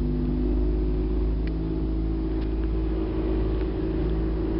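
A 1979 Volvo Penta 400 outboard motor running at a steady speed, with the boat underway.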